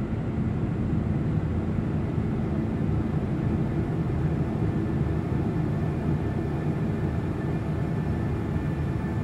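Sound-design drone made from a re-composed street field recording: a steady low rumble, with faint high sustained tones joining in during the second half.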